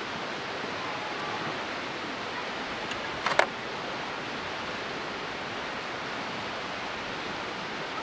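Steady rushing of running water from a nearby stream, with a single sharp click about three seconds in.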